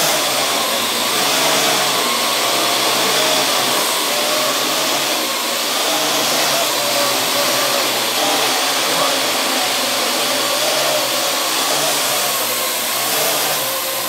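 Parrot AR.Drone quadcopter in flight: its four electric motors and propellers make a steady whirring hiss, with a faint whine that wavers slightly in pitch as the drone adjusts its thrust.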